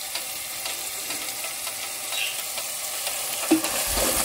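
Onion-tomato masala sizzling in hot desi ghee in a pot while it is stirred with a wooden spoon, which knocks against the pot a couple of times near the end.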